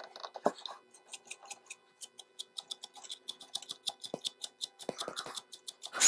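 Faint, rapid, regular clicking, about five clicks a second, with a few louder knocks between them.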